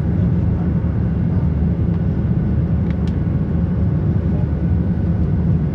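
Cabin noise inside a Boeing 737-700 during its climb after takeoff, heard from a window seat beside the wing: the CFM56-7B turbofans and the airflow make a steady, loud low rumble.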